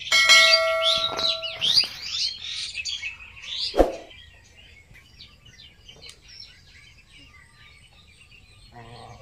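A bell-like ding of a subscribe-button sound effect, ringing for about a second and a half over a burst of quick rising chirps, with a single sharp knock at about four seconds. After that, faint bird chirping.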